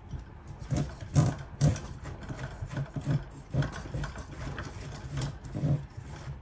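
Align TB70 helicopter's main gear turning against its pinion as the rotor head is rotated by hand, a rough, pulsing grind with small clicks, repeating about twice a second. The gear mesh is tight.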